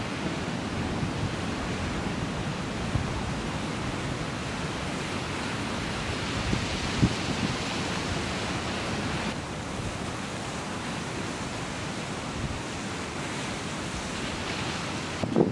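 Ocean surf breaking on a rocky lava shoreline: a continuous, even rushing wash of waves, with some wind.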